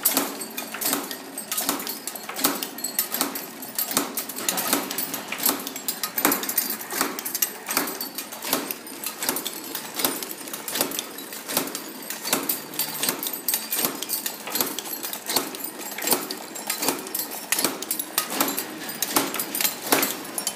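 Machine forming metal Raschig rings, running with a rapid rhythmic metallic clatter of about three strokes a second and lighter clinks of metal between.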